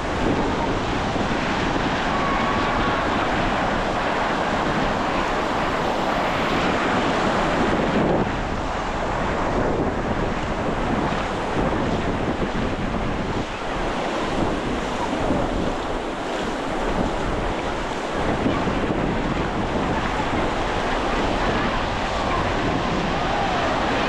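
Sea waves washing onto the shore in a steady rush, with wind buffeting the microphone.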